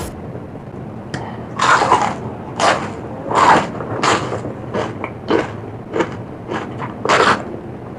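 Close-miked mouth sounds of someone biting and chewing crunchy food: a run of about ten crisp crunches, one every half to three-quarters of a second, beginning about a second and a half in.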